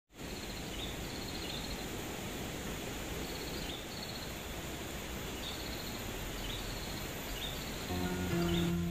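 Rural outdoor ambience: a steady hiss of insects with short, high chirping calls repeating about once a second. Plucked guitar music comes in near the end.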